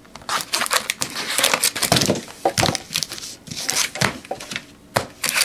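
Wrapped trading-card packs crinkling and rustling as they are handled and pulled out of their cardboard box, in an irregular run of crackles.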